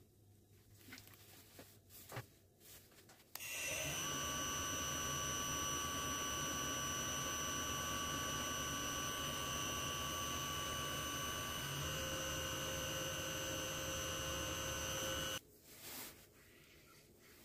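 Small woodturning lathe's electric motor switching on about three seconds in and running with a steady whine while a brass goblet blank is polished with metal polish and a cloth, its pitch shifting a little near the two-thirds mark, then switching off abruptly near the end. Light taps and handling noises come before it starts.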